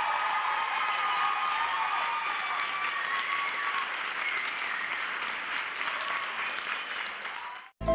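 Audience applauding, which cuts off suddenly near the end.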